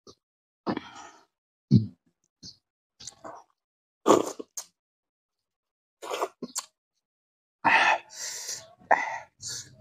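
Close-up eating sounds of a person eating fish curry and rice by hand: irregular bursts of smacking and chewing with short pauses between them. A low thump sounds a little under two seconds in.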